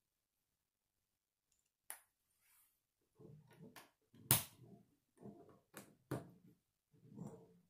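Plastic K'nex rods and connectors being handled and nudged along a wooden tabletop: a single click about two seconds in, then from about three seconds on, scattered plastic clicks and rubbing, with one sharp click a little after four seconds.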